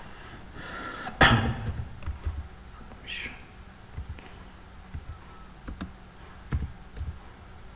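Computer keyboard typing: scattered, irregular key clicks, with one louder thump about a second in.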